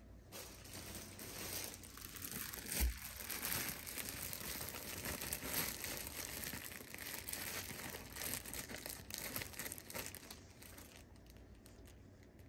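Thin clear plastic bread bag crinkling as a loaf is slid into it and handled, with one short low thump about three seconds in. The crinkling dies down near the end.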